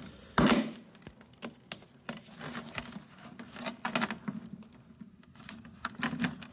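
Gloved hands working at a stubborn plastic tab and rubber gasket on a car headlight lens: irregular small clicks, scrapes and taps of plastic, with a louder knock about half a second in.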